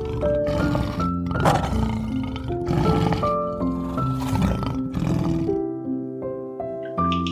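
A big cat roaring, four rough calls about a second and a half apart, over background music with a plain melody. The roars stop about two-thirds of the way through, leaving only the music.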